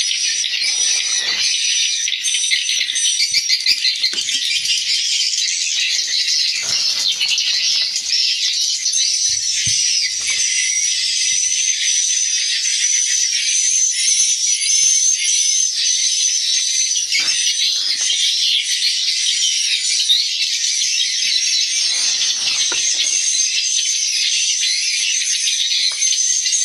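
Dense, unbroken twittering and rattling chatter of many edible-nest swiftlets, with a steady high-pitched tone running beneath.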